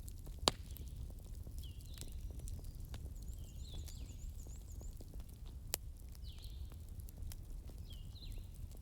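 Wood fire burning with a low steady rumble and crackle, and two sharp pops, about half a second in and near six seconds. Short falling chirps repeat in the background every second or two.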